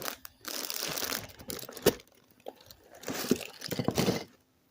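Lego set box and packaging being handled, crinkling and scraping in two stretches with a few sharp clicks.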